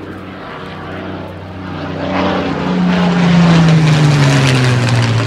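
Vintage single-engine propeller fighter plane flying overhead. Its piston engine swells to a peak about two-thirds of the way in, then drops in pitch as it passes and moves away.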